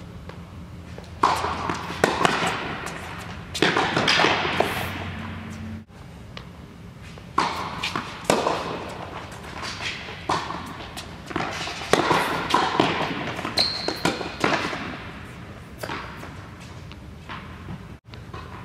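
Tennis balls being hit with racquets and bouncing on an indoor hard court: a string of sharp hits at irregular intervals, each echoing in the large hall.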